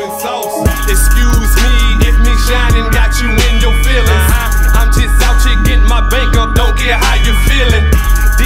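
Hip hop music with a steady beat and a heavy bass line; the bass comes in under a second in.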